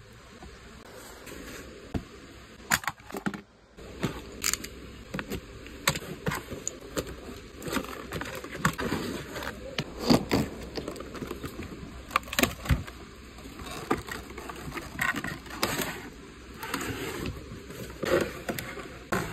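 Cardboard box and clear plastic tray of a die-cast toy car being handled and pulled open: irregular clicks, taps, scrapes and plastic crackling.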